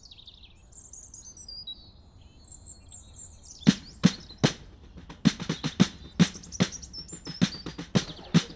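Bird chirps and whistles, then from about three and a half seconds in a run of sharp percussive strikes, roughly two a second, as music begins.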